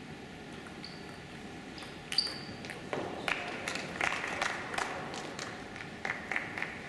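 Table tennis ball clicking off the table and bats: a sharp, ringing ping about two seconds in, then a run of quicker, irregular ball taps and clicks.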